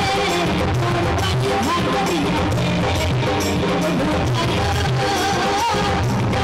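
Live Baul song: a woman singing into a microphone over keyboard and drum accompaniment, heard loud through a PA system.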